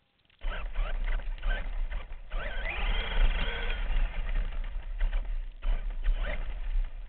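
An RC monster truck's motor and drivetrain whining as it drives over rough dirt, the pitch rising and falling as the throttle changes, over a low rumble from the truck and its onboard camera shaking. It starts about half a second in and briefly drops off twice.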